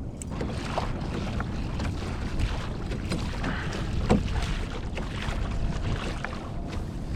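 Wind rumbling on the microphone over water sloshing against a moving fishing kayak's hull, with a few small knocks and splashes, the sharpest about four seconds in.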